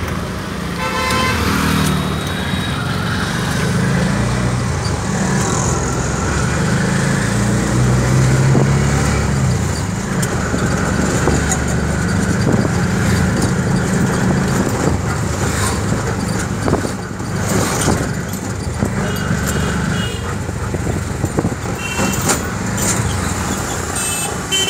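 Auto rickshaw's small engine running as it rides through city traffic, heard from inside its open passenger cabin. Vehicle horns toot briefly near the start and several more times in the last few seconds.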